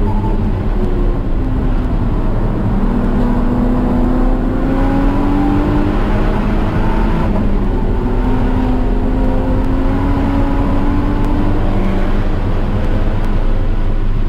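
Car engine under way on a track lap, over a heavy low rumble. Its pitch climbs slowly, drops about halfway through, then climbs again.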